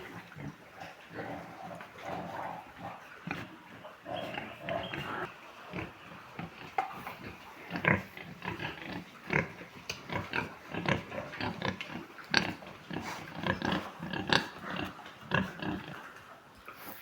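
Large White pigs grunting, with many short, sharp, irregular noises throughout that grow busier after the first few seconds.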